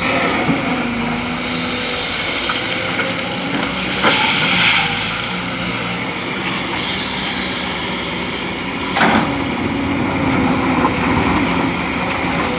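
Kobelco SK200 hydraulic excavator's diesel engine running under load as it digs, with a steady hum; a short hiss about four seconds in and a sharp knock about nine seconds in.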